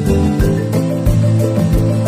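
Music with a steady beat: low thumps about three times a second under sustained, plucked-sounding melodic notes.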